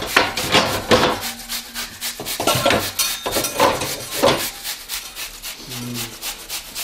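An apple being grated on a flat metal hand grater, a quick run of rasping strokes, a few a second.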